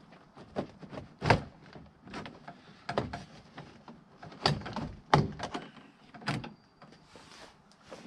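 Irregular sharp knocks, clicks and thunks of hands and tools working on a pickup truck's door and its inner trim panel, about a dozen hits, the loudest about a second in and about five seconds in.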